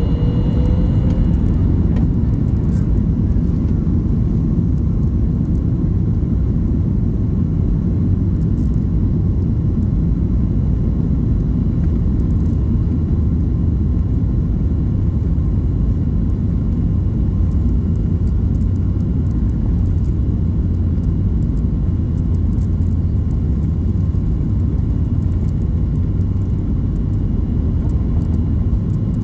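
Jet airliner cabin noise on the ground before take-off: a steady low rumble of the engines at low thrust and the wheels rolling on the taxiway, with a faint steady high whine.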